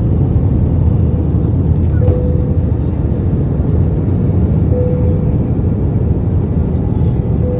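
Steady low rumble of cabin noise inside an Airbus A321, with a faint steady hum that swells briefly three times.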